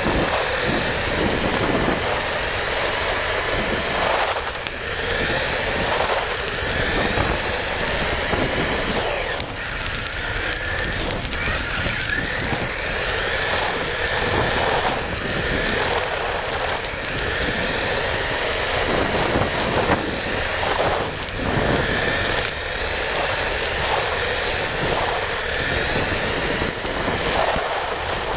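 RC car's motor whining from onboard, its pitch rising again and again as it speeds up, over a steady rattle and rumble of the small wheels and chassis running on rough, cracked paving.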